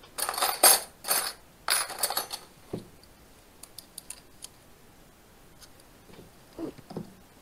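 Metal keywork of a clarinet lower joint being handled and adjusted. A few loud clattering, rustling bursts come in the first couple of seconds, then scattered light clicks and a few soft taps as keys are pressed and closed during a key-balance check.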